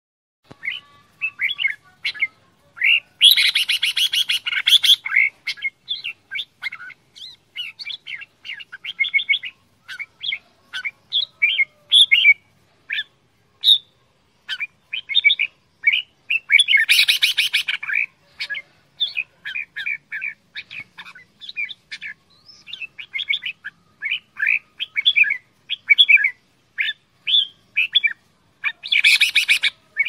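Red-whiskered bulbul singing and calling: a long string of short, quick chirping notes, broken three times by a louder, harsher chattering burst lasting a second or two.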